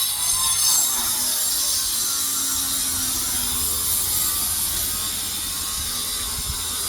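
Steady, high-pitched rasping mechanical noise with no clear beat.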